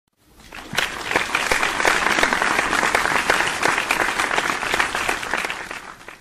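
Audience applause: many people clapping together in a dense, even patter that swells in over the first second, holds steady, and fades out just before the end.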